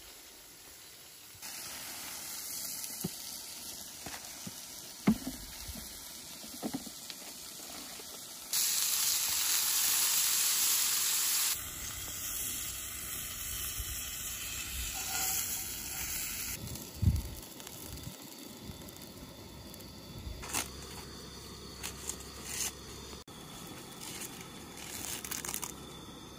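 Food sizzling in a frying pan on a propane camp stove, in several short takes, loudest for about three seconds near the middle. Scattered clicks and knocks sound through it.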